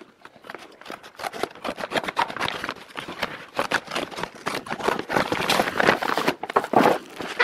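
Crinkling and rustling of a white mailer bag and its packing paper being handled and opened by hand, an irregular run of sharp crackles that picks up about a second in.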